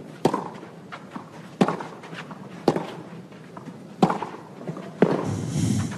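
Tennis rally on a clay court: a ball struck back and forth by racket, about five sharp hits a little over a second apart. A short burst of hissy noise follows near the end.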